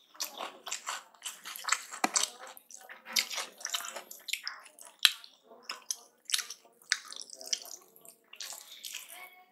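Close-miked chewing and wet mouth sounds from eating rice with aloo keema: an irregular run of smacks and clicks.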